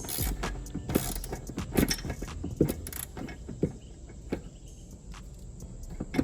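Metal hand tools clicking and clinking against metal parts, a wrench or ratchet working bolts, in a string of irregular knocks about one every half second to second.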